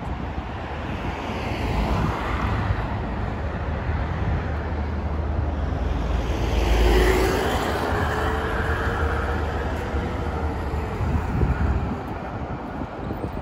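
Road traffic on a multi-lane city road, with one vehicle passing loudest about seven seconds in, its engine note slowly rising.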